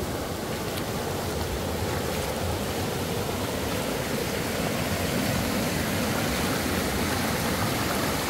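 Mountain river water rushing steadily.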